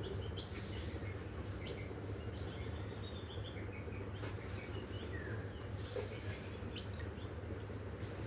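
Faint short bird chirps, one falling in pitch about five and a half seconds in, with scattered sharp clicks over a steady low background hum.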